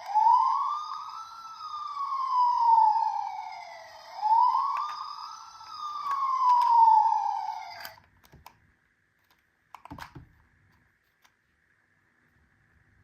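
A toy emergency vehicle's electronic siren wailing, its pitch rising and falling slowly twice before it cuts off suddenly about eight seconds in. A faint click or two of handling follows.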